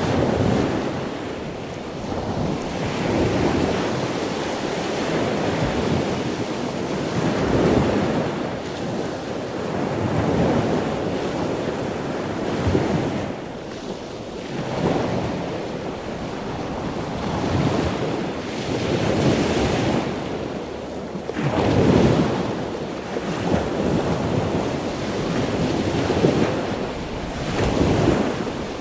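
Ocean waves breaking and washing ashore, the surf swelling and falling back every few seconds.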